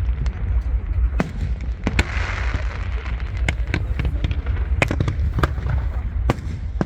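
Aerial fireworks bursting: an irregular string of about ten sharp cracks and bangs over a steady low rumble.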